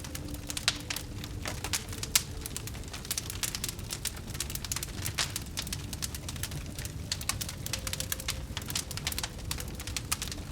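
Fire burning and crackling: dense, irregular pops and snaps over a low rumble, with one louder pop about two seconds in.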